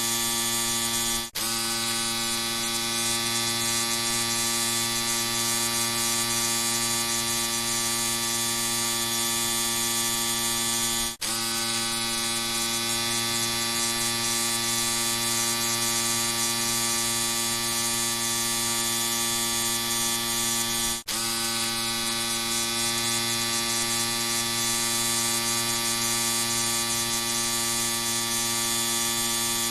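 Electric shaver running with a steady, even buzz. The buzz drops out for an instant three times, about ten seconds apart.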